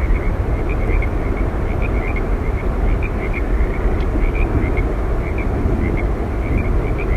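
Steady roar of Yosemite Falls: rushing, crashing water, heaviest in the low range, with faint short high ticks scattered through it.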